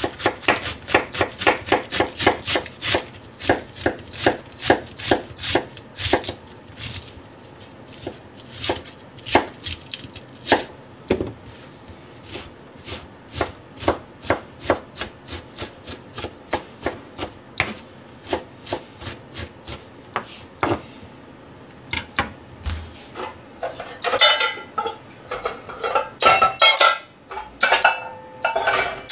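Kitchen knife chopping cabbage on a plastic cutting board: runs of quick strokes, about four a second at first, then sparser and more irregular. A few seconds of clattering with some ringing near the end.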